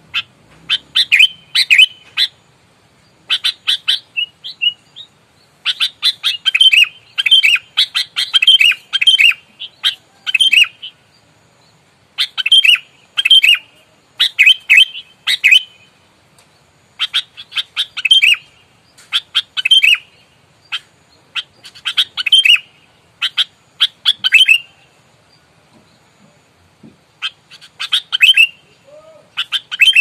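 Sooty-headed bulbul singing loudly in bursts of quick chattering notes, each burst lasting a second to several seconds, with short pauses between them. It is the agitated, fighting-mood song that bird keepers use to provoke rival birds.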